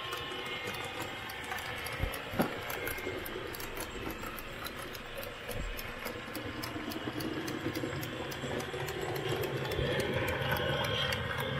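Model railway spoil train of loaded hopper wagons running along the track, with a steady rolling rumble and wheels clicking over the rail joints about four times a second. There is one sharper click about two and a half seconds in.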